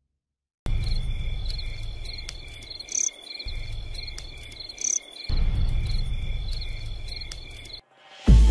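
Night insects chirping in a steady, pulsing high trill over a low rumble, with two brief higher calls about three and five seconds in. It cuts off near the end, when a loud, deep booming hit comes in.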